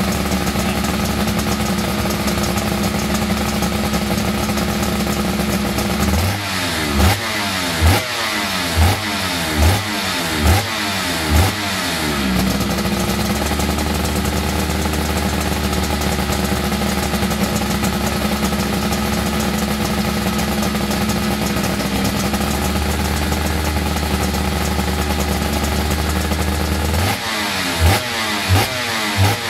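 Suzuki RGV500 500cc two-stroke V4 Grand Prix engine idling, then blipped hard about six times in quick succession, with the revs dropping straight back after each blip, before settling back to idle. Another run of blips starts near the end.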